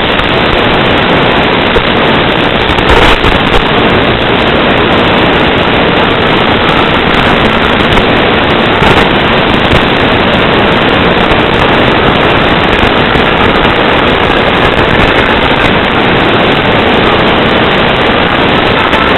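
Loud, steady static hiss from an analog FPV video receiver's audio channel, carrying no sound of its own.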